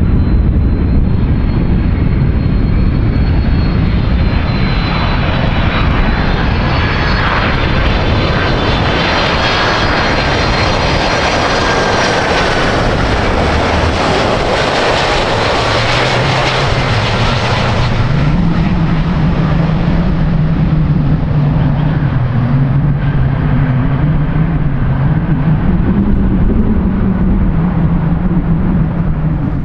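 Jet airliner passing close by with its engines running. A high whine climbs early on, the engine noise builds to its loudest about halfway, then falls away to a lower, wavering hum.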